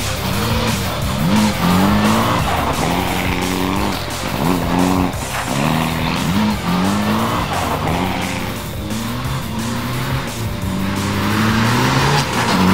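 Mitsubishi Lancer Evolution X rally car's turbocharged four-cylinder engine accelerating, its note climbing and falling back with each gear change, over and over.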